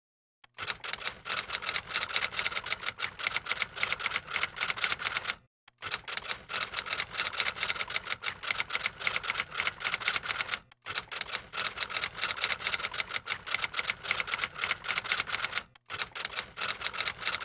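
Typing sound effect: rapid key clicks in runs of about five seconds, each broken by a brief silence, three times.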